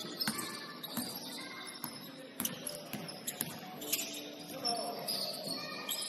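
Basketball bouncing on a gym court in irregular knocks, with short high squeaks from players' sneakers and voices in the background.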